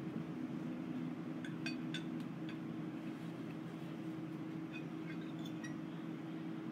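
A metal fork and spoon clinking lightly against a plate in small clusters of clicks, over a steady low mechanical hum from a fan or air conditioning.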